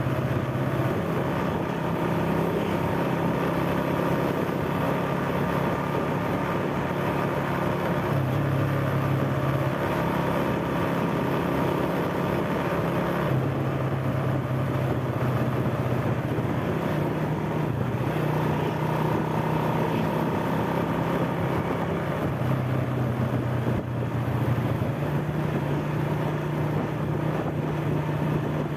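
Motorcycle engine running steadily while riding along a road, its pitch stepping up and down a few times with speed, over road and wind noise.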